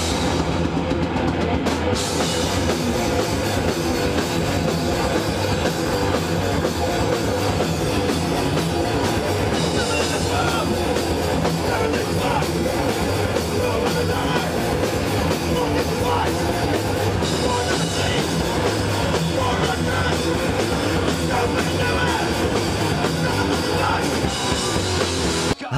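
A metal band playing live: electric guitars over a drum kit, loud and dense without a break, cutting off abruptly near the end.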